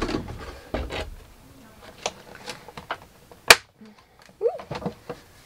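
Cardboard and plastic packaging being handled as a makeup palette is taken out of its box: scattered light knocks and rustles, with one sharp, loud snap about three and a half seconds in.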